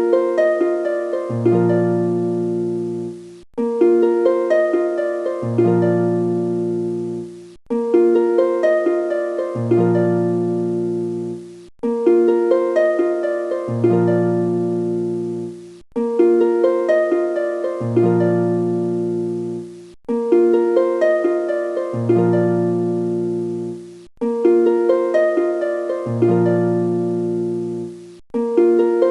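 Background music: a gentle plucked harp-like melody looping about every four seconds, each loop briefly dropping out before it restarts.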